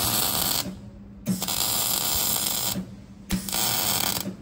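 Electric arc welding crackling and hissing in three short runs of about a second and a half, each stopping abruptly, as a crack in a truck's retarder pipe is welded up. A steady hum runs underneath.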